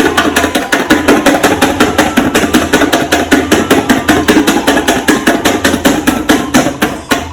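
Rapid mechanical hammering, about seven blows a second, that starts abruptly and cuts off suddenly near the end.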